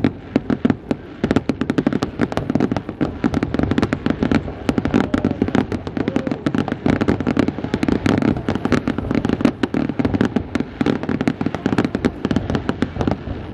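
Aerial fireworks bursting in a rapid, unbroken barrage of sharp cracks and pops, many a second, with no pause.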